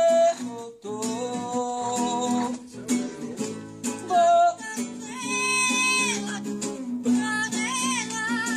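Acoustic guitar strummed while a man sings and a parrot perched on the guitar's neck sings along in long, held notes.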